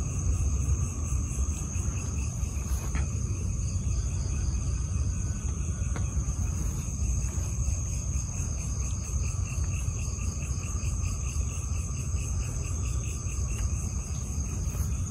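Night chorus of crickets and other insects: a steady high-pitched trill with fainter pulsing chirps beneath it, over a constant low rumble.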